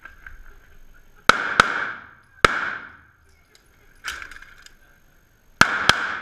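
Pistol shots on an indoor range, each ringing off the walls: a quick pair about a second in, a single shot, a fainter shot near the middle, and another quick pair near the end.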